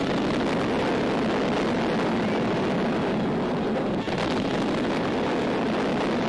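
Newsreel sound effect of underwater depth-charge explosions: a steady loud rushing roar of blast and erupting water, with a brief break about four seconds in.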